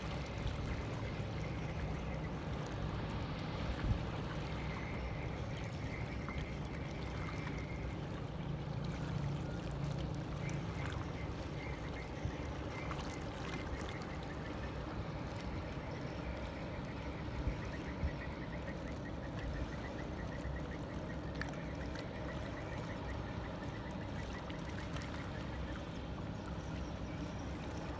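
Steady low drone of boat engines on the river over a bed of water noise. A low hum swells between about four and eleven seconds in.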